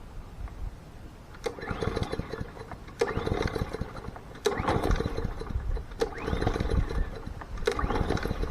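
Gas walk-behind lawn mower being pull-started about five times, roughly one pull every second and a half. Each pull cranks the engine with a short whir, but it never catches and runs.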